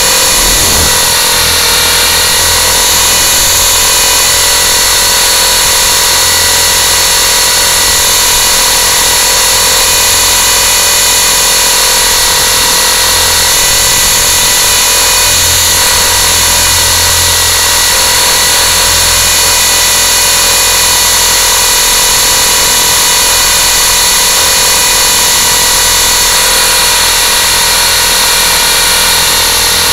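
Electric motors and rotors of a radio-controlled aircraft in hovering flight, heard up close from its onboard camera: a loud, steady whine made of many pitched tones that hardly change in pitch.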